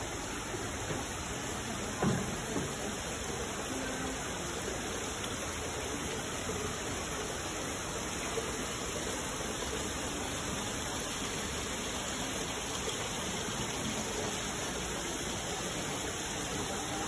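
Water sheeting steadily down a tall wall water feature, a continuous rushing wash, with a single short knock about two seconds in.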